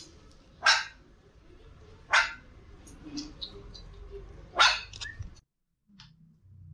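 Small puppy giving three short, sharp, high barks, with fainter little sounds between them.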